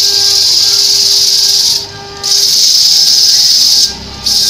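Turning tool scraping a spinning wooden disc on a wood lathe: a loud, steady hiss that breaks off briefly twice when the tool comes off the wood, leaving the lathe's low hum. Faint background music underneath.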